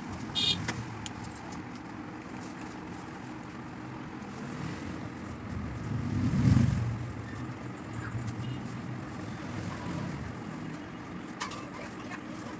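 Low, steady background rumble that swells to its loudest about six and a half seconds in, then falls back, with a few faint clicks near the start and near the end.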